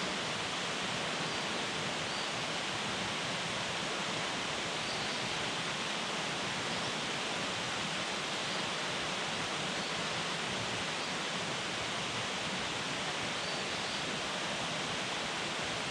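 Small waterfall rushing steadily: a constant, even wash of falling water with no change in level.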